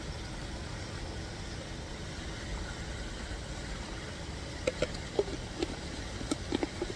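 Hard plastic screw lid clicking and knocking against the rim of a white plastic jar, several sharp clicks in the last two seconds or so as it is handled and set back on. A steady low rushing noise runs underneath.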